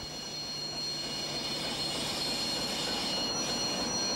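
A train of coupled diesel locomotives rolling past, the wheels squealing on the rails in steady high-pitched tones over a continuous rolling rumble.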